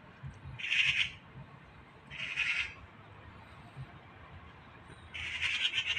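A cat hissing three times, short breathy hisses of about half a second to a second each, near the start, at about two seconds and near the end.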